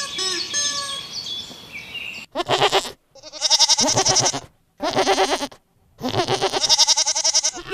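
Repeated short bird chirps fading out over the first two seconds, then a goat bleating four times, each bleat quavering, with short silent gaps between them.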